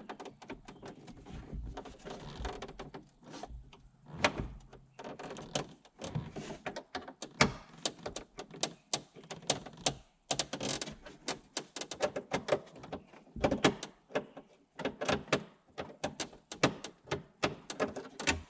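Hand tools working screws out of a Jeep Wrangler TJ's plastic center dash bezel: irregular sharp clicks, taps and knocks, more closely spaced near the end.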